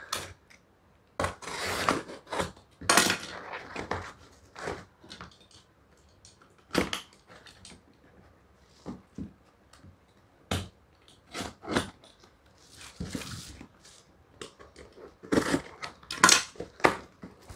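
A cardboard shipping box being cut open with a snap-off utility knife: rasps of the blade slitting packing tape and of cardboard being pulled, mixed with scattered clicks and knocks as the box is handled and turned over, all in irregular bursts with pauses between them.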